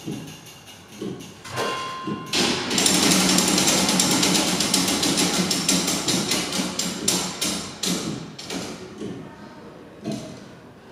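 Tower clock mechanism running, its gears and levers clattering in rapid clicks and knocks as the fan-fly vanes spin. The clatter swells about two seconds in and thins out over the last few seconds.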